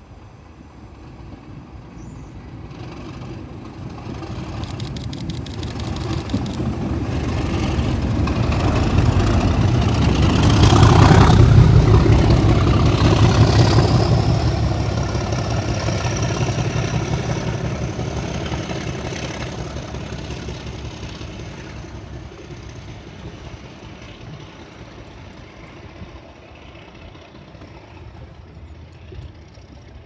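Two Class 37 diesel locomotives, 37425 and 37605, with their English Electric V12 engines, approach, pass close by and draw away. The engine noise builds to its loudest about eleven seconds in, with a high whine that rises in pitch as they pass, then fades as they recede.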